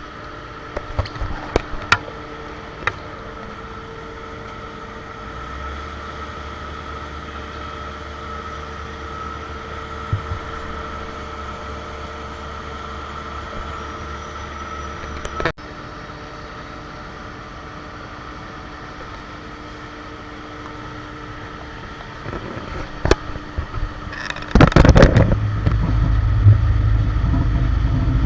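Cargo loader and ramp machinery running with a steady whining hum, a few sharp clanks early on and again later. About 25 seconds in, a diesel engine comes up much louder and keeps running with a low rumble.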